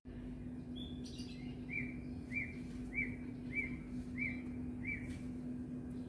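A small bird calling: the same short chirp repeated six times in an even series, about a note every 0.6 s, over a steady low hum.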